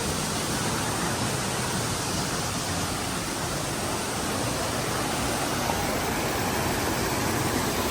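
Waterfall's rushing water: a steady, unbroken wash of noise.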